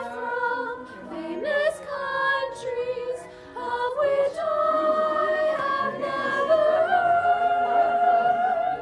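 Three teenage girls singing together a cappella, with several voices at once and some long held notes.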